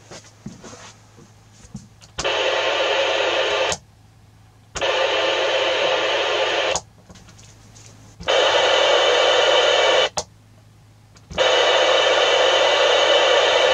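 Interference hash from the camper's LED ceiling lights coming through a Radio Shack handheld 2-metre radio's speaker: the radio breaks into a loud rush of noise four times, each lasting one and a half to two seconds and starting and stopping abruptly, with a faint hum in the gaps between.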